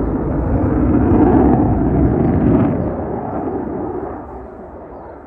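Jet noise from a Saab JAS 39 Gripen fighter's single engine during a display pass: a deep, noisy rumble that swells to its loudest a second or two in, then fades as the jet flies away.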